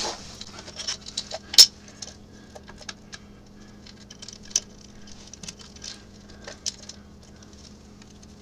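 Handling noise: scattered light clicks, taps and small metallic rattles of hands working with loose engine parts and the timing chain, with one sharper knock about a second and a half in.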